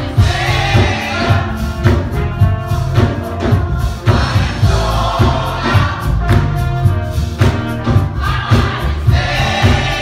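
Gospel choir singing over accompaniment with a steady beat and heavy bass.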